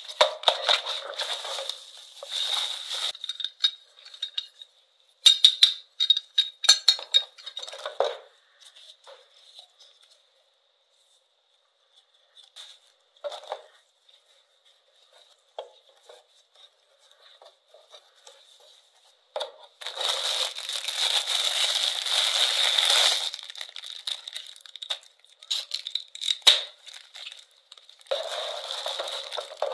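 Unboxing handling sounds: plastic packaging crinkling and rustling in gloved hands, with a cluster of light clicks and knocks about five to eight seconds in. It comes in irregular bursts separated by quiet stretches, the longest burst of crinkling about two-thirds of the way through.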